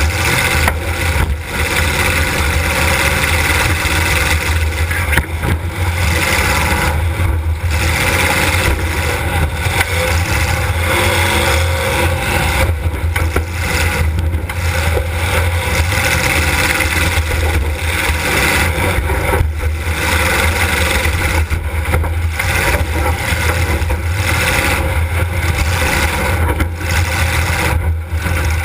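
Demolition derby car's engine running loud and steady, heard from inside the car.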